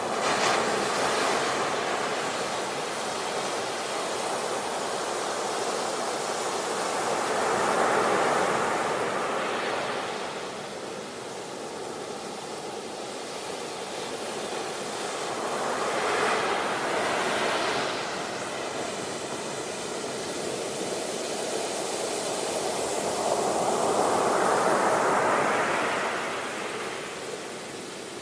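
Ocean surf on a beach: waves break and wash in, swelling and falling away about every eight seconds over a steady hiss of water.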